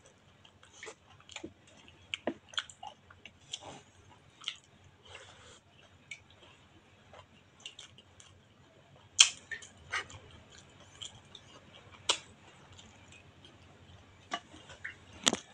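Close-up wet chewing and lip-smacking of a mouthful of rice, stewed fish and vegetables, heard as irregular short sharp clicks with a louder one a little past halfway and another near the end.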